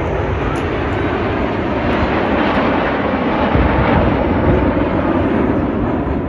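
Radio-controlled model airplane flying past, its engine noise building to a peak about four seconds in and then easing off.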